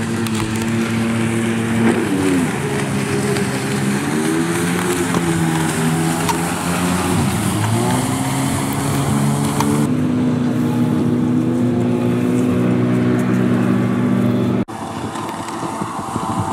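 1995 Sea-Doo GTX personal watercraft's 657X two-stroke twin engine running hard at speed, with water and spray hiss over it. The engine note dips and comes back up twice and rises near the end, then breaks off suddenly and resumes at a different pitch.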